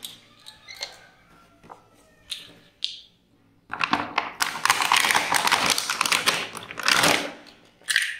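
A few light taps of small plastic toy vehicles being set down on a hard floor, then loud crinkling of a clear plastic blister pack as it is handled for about four seconds in the second half.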